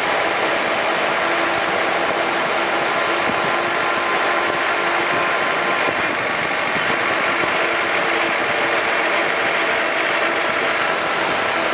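Land Rover Defender 110 on the move: a steady rush of road and drivetrain noise, with a faint steady whine in it.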